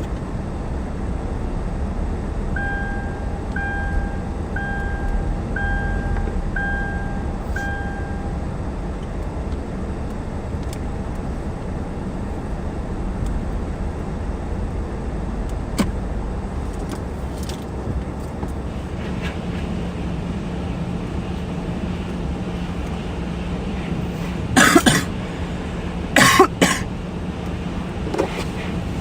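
Car wash machinery running with a steady low rumble and hiss. A beep sounds six times, about once a second, early on. A steady hum comes in about two-thirds through, and two loud short bursts of noise come near the end.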